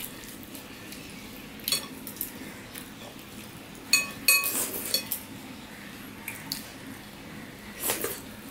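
People eating rice and curry by hand from china plates: soft, wet sounds of fingers working the rice, broken by several sharp clinks against the plates. Two of the clinks, about four seconds in, ring on briefly.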